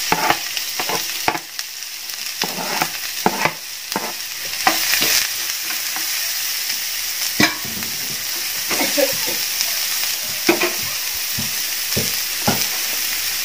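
Chopped onion sizzling in hot oil in a frying pan, with a steady hiss and irregular knocks and scrapes of a metal spatula against the pan as it is stirred.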